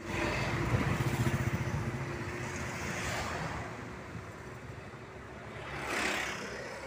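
A bus passes close by with its engine running, loudest in the first couple of seconds and fading as it drives away. About six seconds in, another vehicle swells past.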